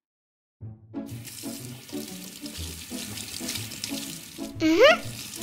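Water running from a tap into a sink, a steady hiss starting about a second in, over light background music. A short rising whistle-like sound effect comes near the end.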